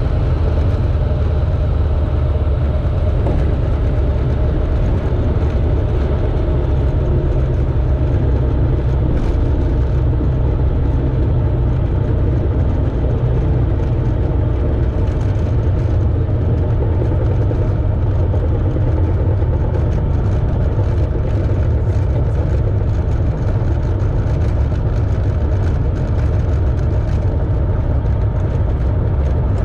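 Light single-engine aircraft's piston engine and propeller running steadily as the plane rolls out along the runway, heard from inside the cockpit.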